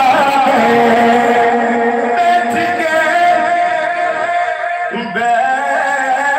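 A man singing a naat, an Urdu devotional poem in praise of the Prophet, into a microphone, drawing out long wavering notes with a brief break about four and a half seconds in.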